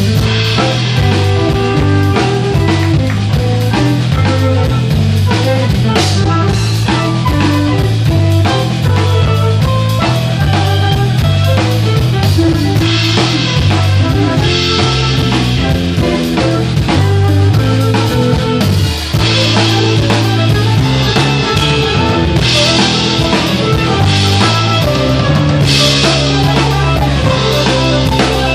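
Live rock band playing loudly: a Santafe drum kit with Meinl cymbals beaten with sticks in a steady groove of bass drum, snare and rimshots, with electric guitar and a low bass line. Cymbal crashes ring out again and again, and the band breaks off for an instant about two-thirds of the way through before a crash brings it back in.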